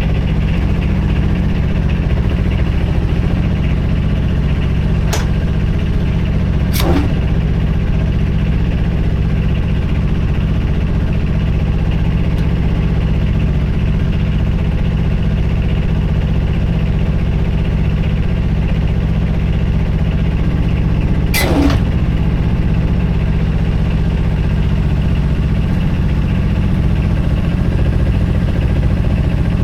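An engine running steadily at idle, with a brief falling whine heard twice, once about 7 seconds in and more clearly about 21 seconds in.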